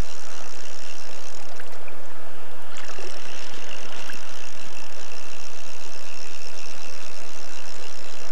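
Fast river water rushing, with a steady high buzz over it that breaks off for about a second near two seconds in and stops again near the end.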